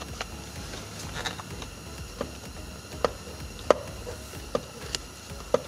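Irregular light clicks and taps, about nine scattered through, from a screwdriver and hands working at the steering wheel's plastic trim while tightening the Torx T20 screw that holds the cruise control switch, over a low steady hum.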